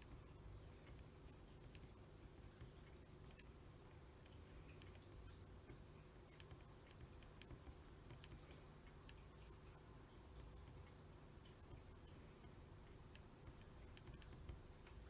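Faint scratching and light ticks of a Conway Stewart 36 fountain pen's nib on paper, stroke by stroke as Japanese characters are written, over a low steady hum.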